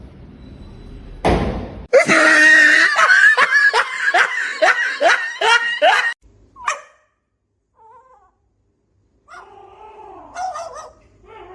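A loud voice letting out a run of about nine falling cries or laughs over some four seconds, followed after a pause by fainter voice sounds.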